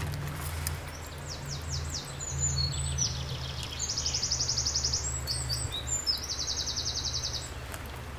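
A songbird singing a run of high phrases, several of them fast trills, over a steady low rumble.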